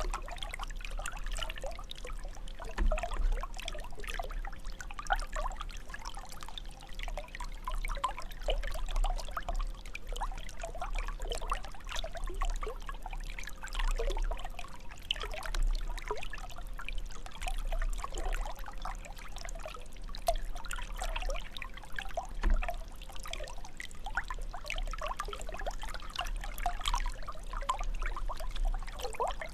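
Water jet of a fountain splashing and trickling steadily into its basin.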